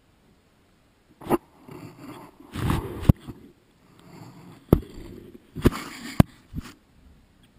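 After about a second of quiet, a lioness handling a small camera up close with her muzzle: sharp knocks and scrapes against the camera body, about six in all, with rubbing of fur over the microphone and a breathy rush of air between the second and third seconds.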